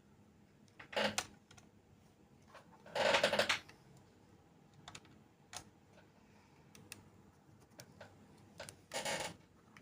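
Small screwdriver working a screw out of a mini PC's CPU cooler: scattered light clicks of the tool on the screw and case, with short scraping bursts about a second in, around three seconds in and near the end.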